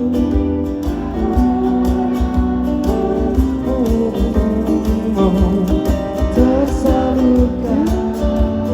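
Live band playing a mid-tempo song: strummed acoustic guitar and a steady low beat, with held sung notes and a sung word near the end.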